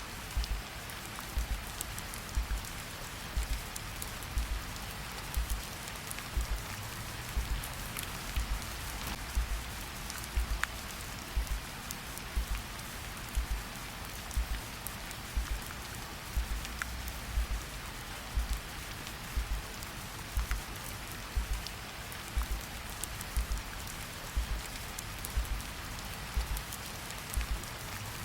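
Steady rain hiss with a heartbeat's low thump repeating evenly about once a second.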